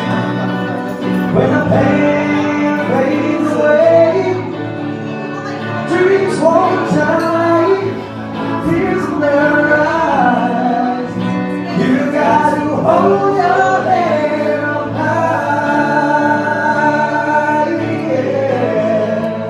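Live band performing a song: men singing into microphones over acoustic guitar accompaniment, amplified through a PA.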